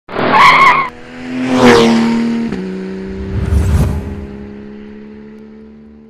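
Produced intro sound effect of a car: a loud tire screech in the first second, then a rising rush and a low rumble about three and a half seconds in, trailing off under a held tone that slowly fades.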